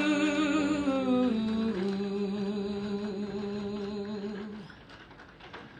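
A singer holding a long hummed note with vibrato at the end of a sung phrase, dropping in pitch about a second and a half in, then fading out near the end.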